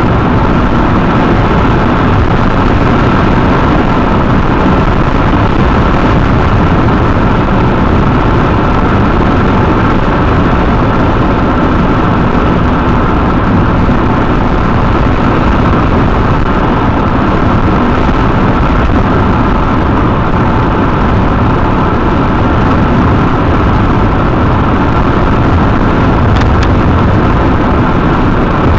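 Steady road noise of a car travelling at highway speed, heard from inside the cabin: an even rush of tyres and engine with a faint steady hum running through it.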